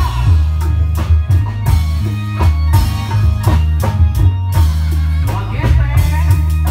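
Loud Indramayu reog (bleknong) music: drums and percussion striking several times a second over a heavy, sustained bass line.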